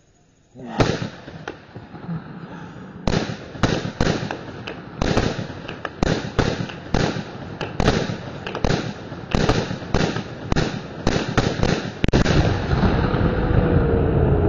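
Gunfire at a boat out on a lake: a single shot about a second in, then a rapid, irregular string of shots, roughly two a second, for about nine seconds. Near the end the shots give way to a loud continuous rushing noise.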